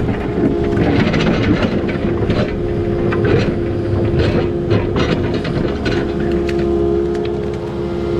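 Excavator at work: a steady diesel engine and hydraulic hum, with frequent clanks and rattles of metal throughout.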